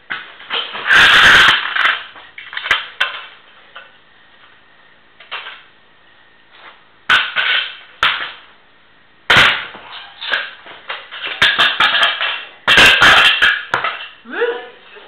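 Razor Pro scooter being smashed against a concrete floor, swung down and stomped on: a series of sharp metal crashes and clanks in several bursts, with short pauses between.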